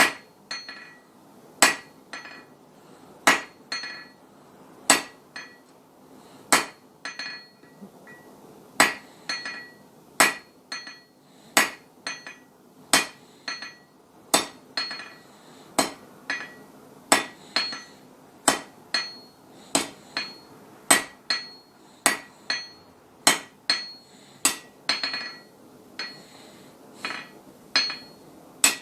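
Hand hammer blows on hot steel bar stock over an anvil, at a steady rhythm of heavier and lighter strikes, about two a second, each leaving a short bright ring. The blacksmith is drawing out a shallow taper at the anvil's edge.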